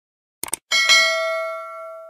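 Subscribe-button sound effect: a quick double mouse click about half a second in, then a small notification bell chimes and rings out, fading slowly.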